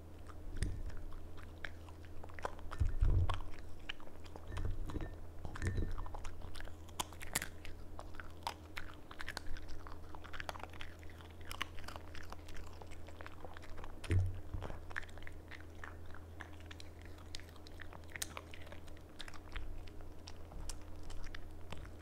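A small dog chewing and biting a soft homemade salmon madeleine treat, with many quick wet mouth clicks and smacks throughout. A few dull low thumps come about 3 s, 5 to 6 s and 14 s in.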